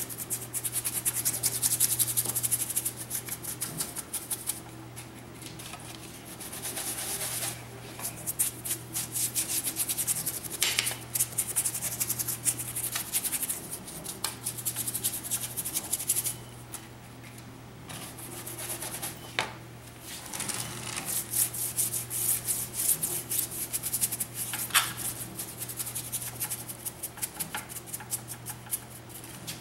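Stiff paintbrush scrubbing and dabbing acrylic paint onto a rough concrete statue: quick scratchy strokes in spells with brief pauses. A steady low hum runs underneath.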